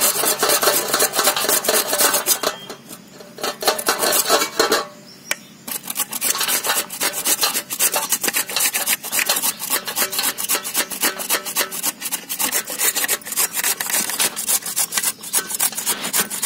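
A carrot grated on the large holes of a handheld metal grater: quick, repeated rasping strokes, with two short pauses a few seconds in.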